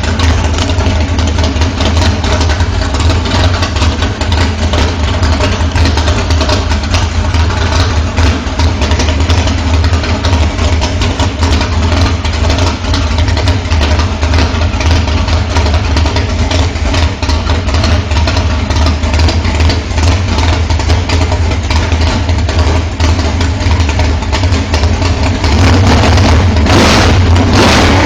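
388 cubic inch small-block Chevrolet V8 idling with a rough, uneven note. Near the end its throttle is opened and it revs up louder.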